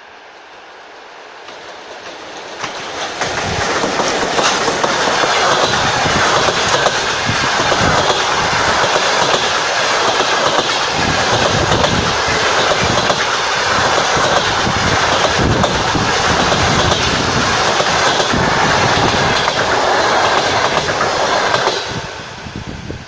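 ChS7 electric locomotive and its passenger coaches passing close at speed: a loud rush of wheels on the rails with rapid clickety-clack as the wheelsets cross the rail joints. It builds over the first few seconds as the locomotive arrives and drops away sharply near the end as the last coach goes by.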